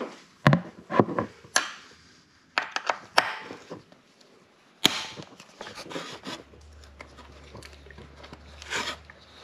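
Sharp knocks, clicks and scraping of a screwdriver and hands working against a motorcycle's plastic rear fender while its bolts are undone; the loudest knocks come at about half a second, one second, a second and a half, and just before five seconds in.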